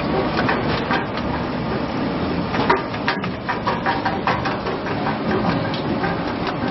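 Vegetable strip-cutting machine running: a steady mechanical noise with irregular clattering knocks.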